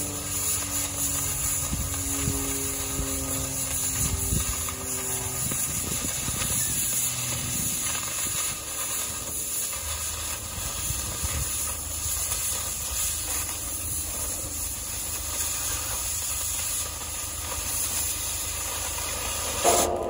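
Oxy-acetylene torch with a scarfing tip blowing a steady hiss as it cuts away welds on the steel grapple plate, throwing sparks. Just before the end the hiss cuts off suddenly with a sharp pop.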